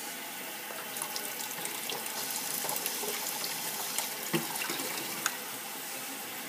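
Kitchen faucet running a steady stream of water into a glass packed with ice, held in a metal sink, with a few light clinks.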